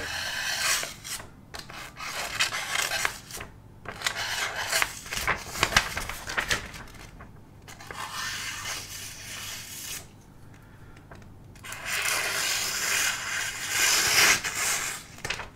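A sheet of paper being sliced against the edge of a steel arming sword: a dry rasping, crackling paper noise in several passes, with pauses about halfway through. It is a paper-cutting test of the edge, which is only adequately sharp and does not feel completely sharp.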